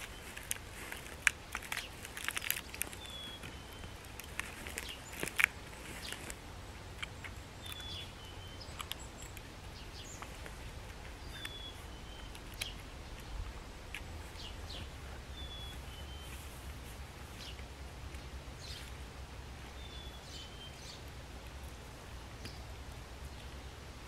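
Cord rustling and scraping against pine bark as it is wrapped and knotted around the trunk, with a few sharp clicks in the first few seconds. A bird repeats a short, high, falling two-note chirp about every four seconds.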